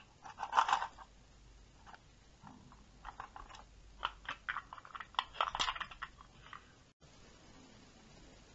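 Loose metal sewing-machine accessories (presser feet and other small parts) clinking and rattling in a plastic box as it is handled, in clusters of sharp clicks, loudest about half a second in and again between four and six seconds in.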